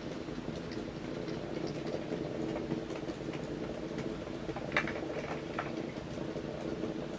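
Two Hexbug Nano v1 robot bugs buzzing and pattering on their vibrating rubber legs as they scuttle over a wooden board, with sharp clicks as they knock against the plastic Duplo brick walls. The loudest run of clicks comes about five seconds in.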